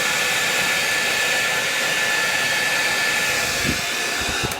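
Hair dryer running, a steady rush of air with a thin high motor whine, blowing hot air to shrink cling wrap onto a bottle. It switches off right at the end, after a few low bumps.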